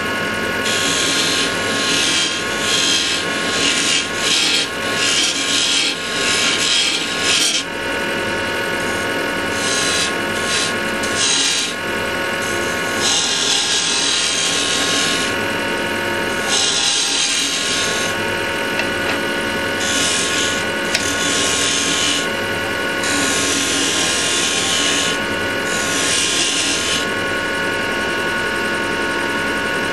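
Axminster wood lathe running with a steady hum, while a hand-held turning chisel cuts a spinning wooden blank. The scraping, hissing cut comes and goes repeatedly as the tool is pressed in and eased off.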